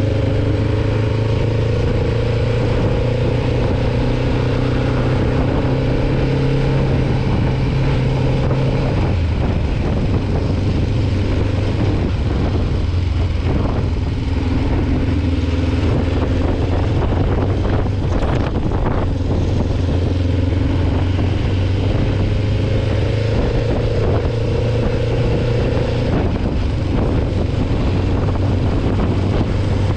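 Kawasaki Ninja 500R's parallel-twin engine running steadily under way on the road; its note drops a little about nine seconds in, then holds steady again.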